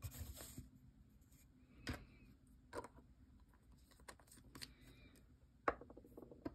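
Quiet desk handling sounds: a brief rustle at the start, then a few separate light clicks and taps, the loudest near the end, as a wooden dip-pen holder is handled and laid on a notebook.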